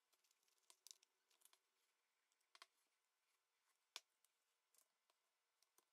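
Near silence with faint scattered clicks and scrapes: a plastic opening card worked along the adhesive seam of a phone's back cover, slicing the glue to free it.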